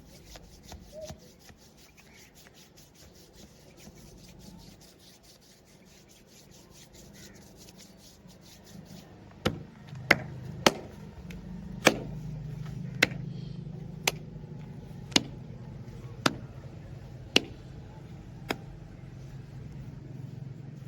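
Hands working over a person's body during a massage and body-cracking session: quick, even rubbing strokes, then about ten loud, sharp cracks, most of them about a second apart.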